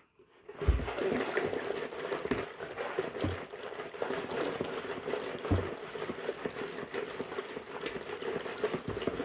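Small washing machine running its wash cycle: a steady motor hum with water churning in the tub, starting about half a second in, with a few low thumps.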